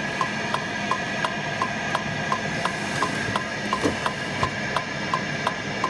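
Short electronic beeps repeating evenly about three times a second, over a steady high-pitched tone and hum.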